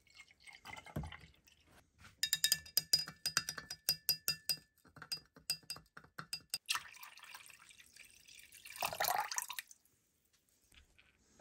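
A metal rod stirs salt into water in a glass jar, clinking rapidly against the glass for about three seconds. Later the salt water is poured out with a rushing splash that peaks near the end. This is the salt-water electrolyte for a rust-removal bath being mixed.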